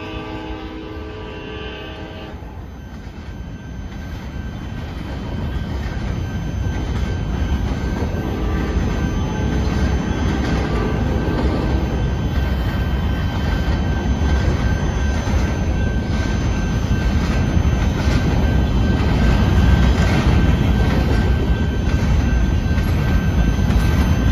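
Freight train of covered grain hopper cars rolling past, a steady rumble of wheels on rail that grows louder over the first ten seconds and then holds. A locomotive horn sounds at the start and stops about two seconds in.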